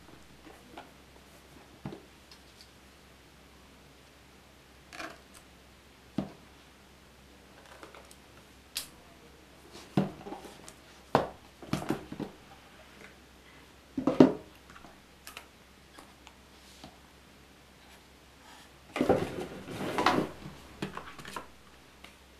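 Hands handling a cardboard product box and its packaging: scattered light taps, rubs and scrapes of cardboard, with a longer stretch of rustling and sliding near the end as the box is opened and the contents lifted out.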